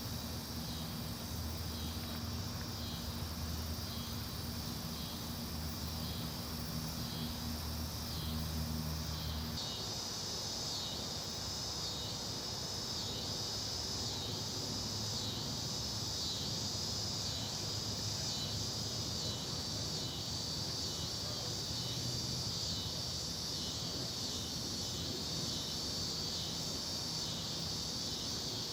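Steady, high-pitched chorus of insects with a slow pulsing, over a low hum that stops about a third of the way in.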